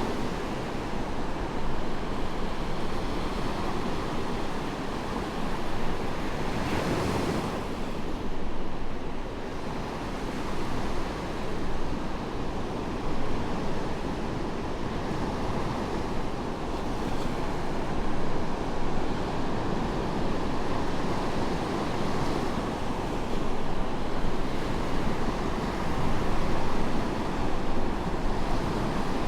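Medium waves breaking and washing onto a sandy beach, with steady surf noise and a swell of one breaker after another, a stronger crash about seven seconds in. Some wind is on the air.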